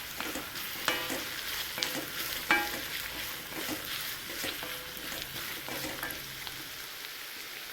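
Chopped onions sizzling in hot sesame oil in an iron kadai while being stirred. A metal spoon scrapes the pan and clinks against it a few times.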